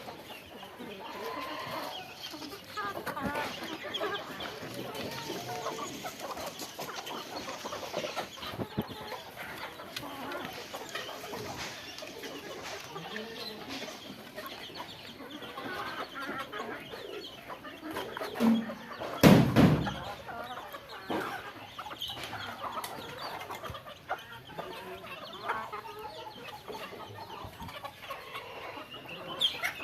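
Chickens clucking steadily, many short overlapping calls. About two-thirds of the way through there is a loud thump.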